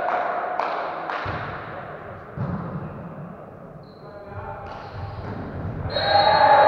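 Volleyball being hit during a rally in a reverberant sports hall, with dull thuds of the ball. A rhythmic beat from the sidelines dies away about a second in. Near the end a referee's whistle blows and players shout as the point ends.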